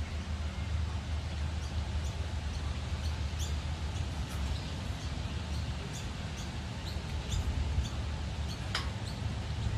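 Small bird chirping over and over in short high notes, roughly two a second, with one louder chirp near the end, over a steady low rumble.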